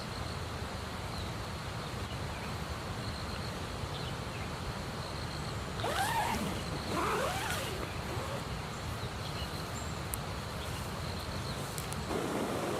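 Steady rush of river water, with a few gliding animal calls between about six and seven and a half seconds in.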